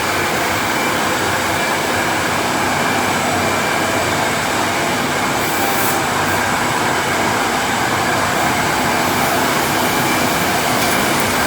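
Sawmill running steadily as it cuts a large ash log into slabs: a loud, unbroken machine noise.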